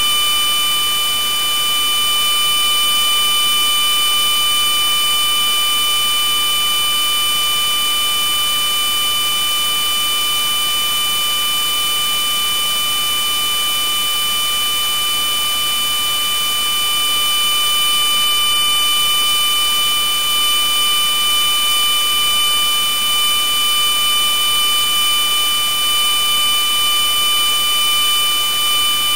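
Loud electronic noise: a steady hiss with several high tones held on top of it, unchanging, with the loudness wavering slightly from about two-thirds of the way in.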